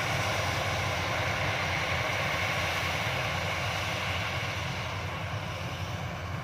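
Yanmar YH-850 combine harvester running steadily, its diesel engine and threshing machinery giving a constant rumble and hiss that eases slightly near the end.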